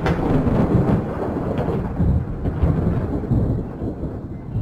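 Thunder rolling: a long low rumble with some crackles, easing off near the end.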